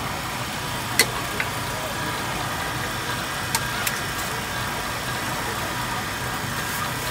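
A motor running steadily with a low hum and hiss, broken by a few sharp clicks, two pairs about one and three and a half seconds in.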